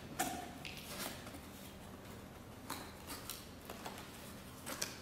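Cardboard box being opened by hand: short scrapes and rustles as the flaps are pulled apart, with a few light clicks and a brief squeak near the start.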